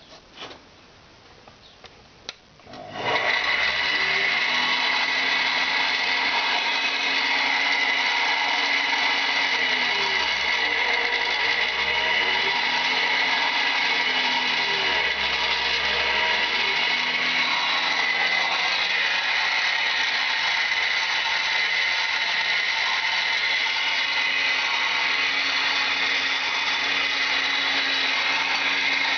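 Electric motor of a homemade metal lathe switched on about three seconds in and running steadily, its lower pitch dipping and coming back up twice in the middle. A few light clicks come before it starts.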